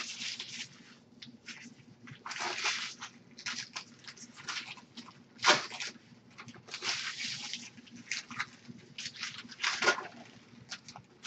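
Foil trading-card pack wrappers crinkling and tearing as packs are ripped open by hand, in irregular crackly bursts, with two sharper, louder rips about halfway and near the end.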